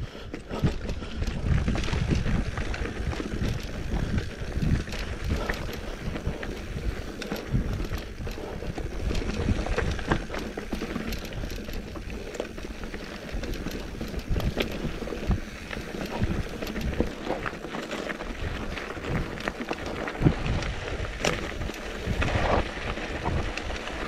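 Mountain bike rolling fast down rocky dirt singletrack: tyres crunching over stones and the bike rattling with many sharp knocks, over a steady rumble of wind on the microphone.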